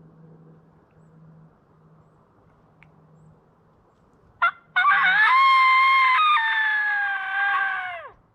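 Coyote howler call blown close by as a turkey locator call: one short bark, then a long loud howl that steps down in pitch partway through and falls off at the end, sounded to make a roosted gobbler shock-gobble.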